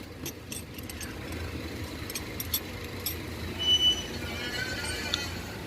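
Small sharp clicks from hand work on a car's steering column parts being screwed and fitted, followed nearly four seconds in by a short high squeak and a run of brief squeaky chirps, over a steady low rumble.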